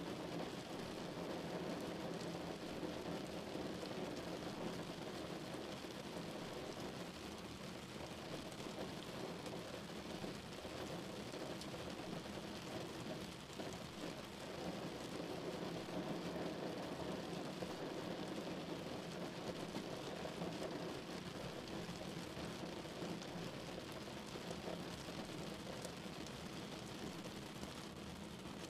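Rain falling on a car's windshield and roof, heard from inside the cabin over the steady noise of the car and its tyres on a wet road, with faint scattered drop ticks.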